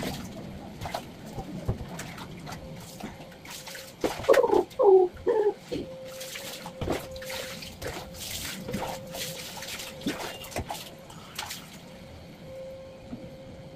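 Cat meowing in protest while being bathed: a few loud wavering yowls about four seconds in. Water splashes and sloshes in a basin around them.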